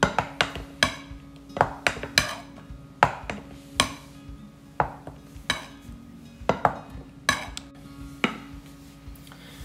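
Spatula folding a thick cream mixture in a ceramic bowl, knocking and scraping against the bowl in irregular clicks about one or two a second.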